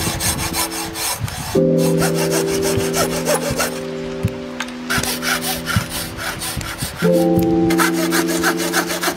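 Fine-toothed hand saw cutting into a hardwood block in quick back-and-forth strokes, a rasping stroke noise that comes and goes. Background music with sustained tones plays underneath.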